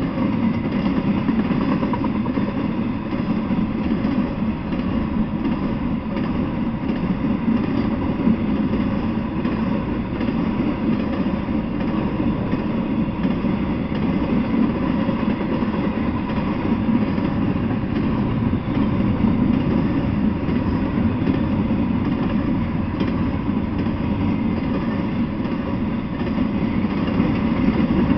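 Intermodal freight train's cars rolling past on the track: a steady rumble of wheels on rail.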